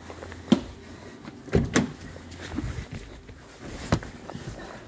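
A few sharp knocks and thumps, the loudest about half a second in and another near the end, as a car door is handled and someone climbs into the driver's seat of a 2013 Toyota RAV4 EV.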